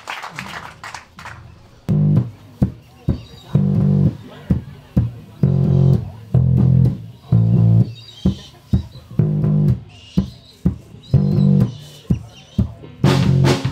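Live electric bass guitar playing a riff of short, repeated low notes in phrases with gaps between them, starting about two seconds in. A drum kit comes in near the end.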